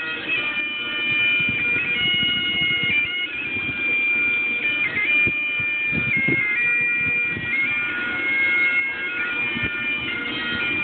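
Bagpipes playing a tune: the chanter's melody steps between held notes over the steady drones. Some low rumbling noise lies beneath.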